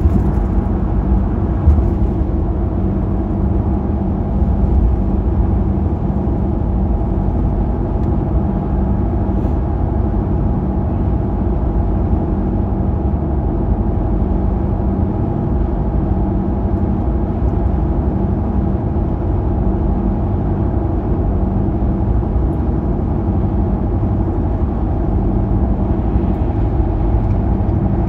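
Car cruising at a steady highway speed, heard from inside the cabin: a constant engine hum over low tyre and road rumble, with no change in pitch.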